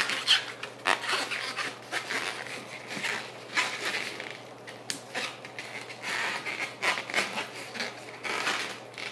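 Inflated latex twisting balloons being handled, twisted and tied together, rubber rubbing and squeaking in irregular bursts.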